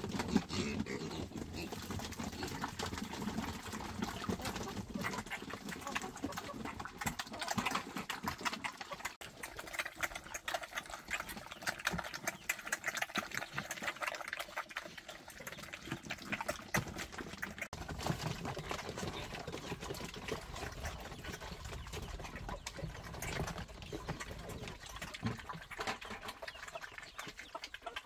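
Piglets slurping and chomping a liquid feed from a shared trough, a dense, irregular wet smacking.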